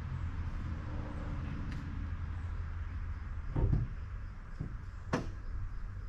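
Ford 6.7 L Power Stroke V8 diesel idling steadily from a cold start, a low even rumble. Two sharp knocks cut in, about three and a half and five seconds in.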